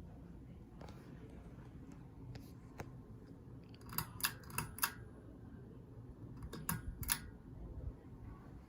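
Sharp clicks of a Hunter ceiling fan's pull-chain speed switch, four in quick succession and then two more, over the low steady hum of the fan running.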